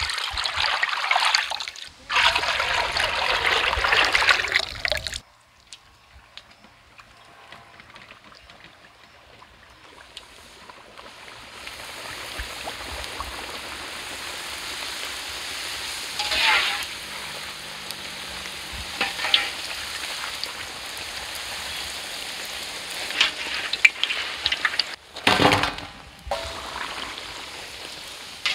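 Cooking oil poured in a thick stream into a large, empty metal kadai, splashing for about five seconds with a brief break about two seconds in. Then puris deep-frying in the hot oil: a steady sizzle, with a few sharper splashes or knocks.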